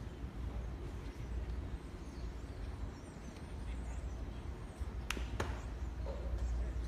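Ballpark ambience with a steady low wind rumble on the microphone and faint distant voices; about five seconds in, two sharp cracks a third of a second apart as a baseball pitch arrives at home plate.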